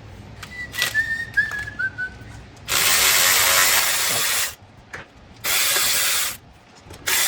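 Ratchet running in three bursts on the manifold bolts, the first nearly two seconds long and the others shorter. About a second in comes a faint short squeal that falls in pitch.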